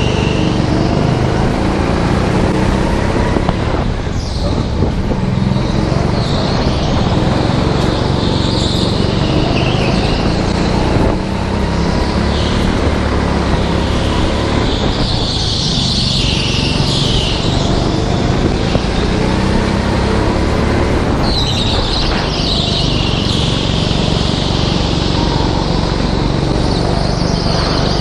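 Onboard sound of an indoor racing go-kart's petrol engine running hard, its pitch rising and falling with the throttle through the corners. High squeals come and go, loudest in the second half.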